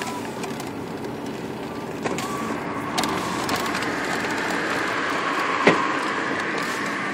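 Steady road and engine noise heard inside a moving car's cabin, with a few light clicks and one sharp knock about five and a half seconds in.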